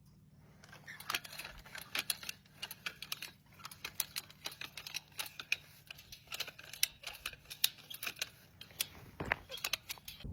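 Rapid, irregular clicks and taps, over a faint steady low hum.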